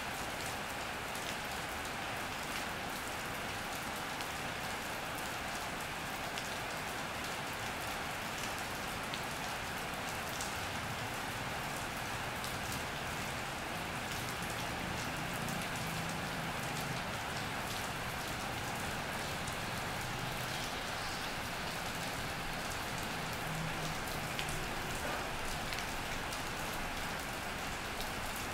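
Steady rain drumming on an iron roof, with many fine drop ticks. Through the middle a low hum swells and fades: a vehicle passing on the road.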